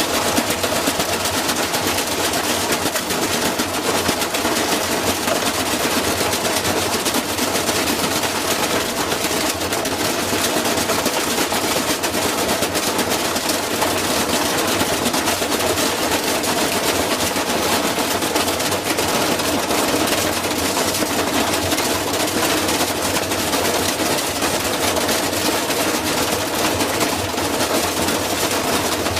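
Washing machine banging and rattling in a rapid, unbroken clatter that holds at the same loudness throughout.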